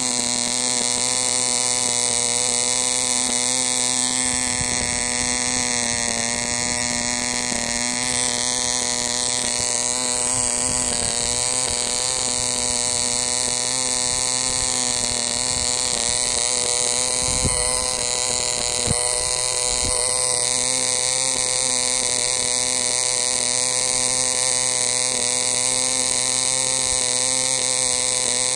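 1959 Allbon Bambi 0.15 cc two-stroke model diesel engine running steadily at high speed, turning a small nylon propeller: a continuous high-pitched buzz whose pitch wavers slightly now and then.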